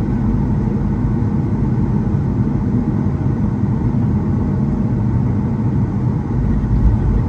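Steady low engine and air noise inside the cabin of a Boeing 737 moving on the ground, even in level throughout.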